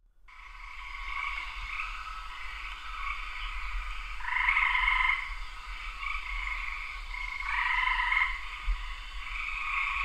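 A chorus of frogs calling, fading in at the start and swelling twice, about four seconds in and again near eight seconds.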